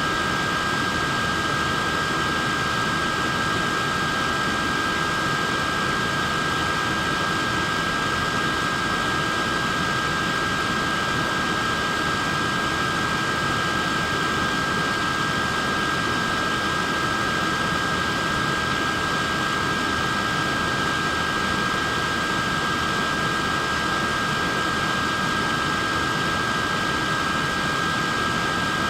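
Wearable neck fan running steadily: an even rush of air with a constant high whine from its small motor and blades.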